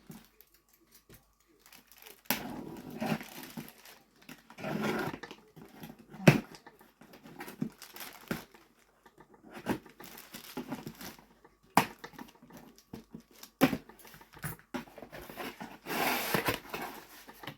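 Gift parcel being unpacked: cardboard and wrapping rustling and crinkling in irregular bursts, with a few sharp knocks of the box being handled.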